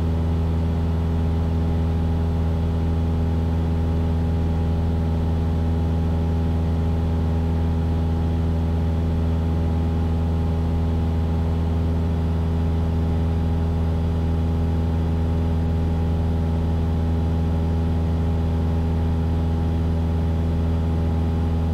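Cessna 172's piston engine and propeller running steadily in level cruise, a constant low drone heard inside the cabin.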